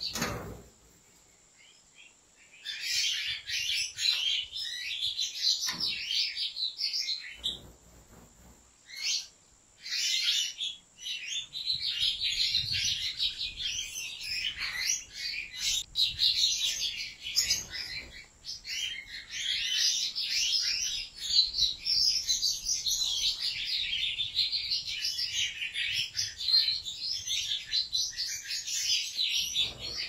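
European goldfinches singing: long runs of rapid, twittering song with short pauses in the first few seconds, then near-unbroken song.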